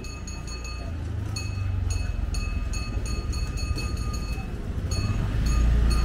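A vehicle engine's low rumble grows steadily louder as it approaches, with a regular high-pitched ticking, about two to three a second, over it.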